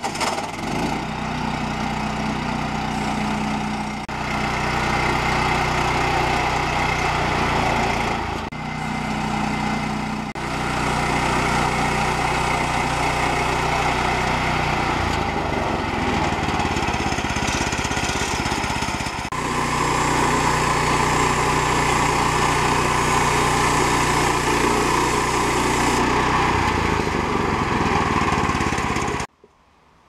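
Woodland Mills HM122 portable band sawmill running steadily, its small gas engine under load as the band blade saws through a redwood log. The sound changes at a few abrupt jumps and cuts off suddenly near the end.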